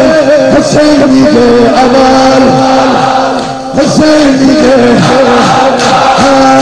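A male voice chants a Shia devotional nasheed in Middle Eastern style, holding long wavering notes over music with a steady beat. There is a brief dip about halfway through.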